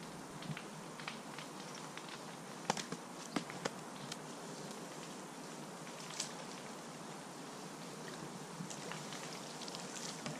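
Quiet outdoor background hiss with a scattering of light clicks and taps, the sharpest a little under three seconds in.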